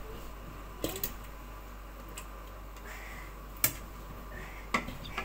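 Scattered sharp clicks and knocks of dishes and utensils being handled, about half a dozen spread out, the loudest about three and a half seconds in.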